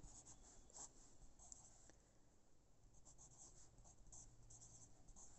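Faint scratching of a pencil on notebook paper in short strokes, as digits are written out.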